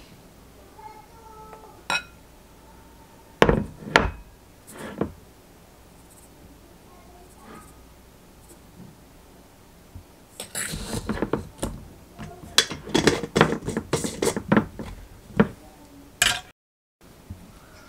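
Sugar being spooned from a glass jar into a glass mixing bowl. A few sharp knocks of the jar and spoon come in the first five seconds, then a dense run of scraping and clinking from about ten seconds in.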